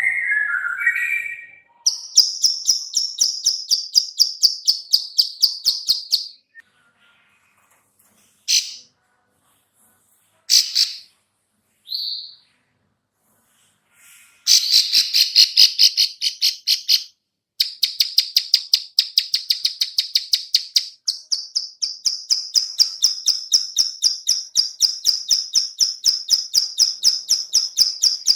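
Female ciblek sawah (prinia) giving its rapid 'klik-klik' call: long, evenly spaced trains of sharp high clicks, broken by a few short separate notes, with a brief lower warbled phrase at the very start.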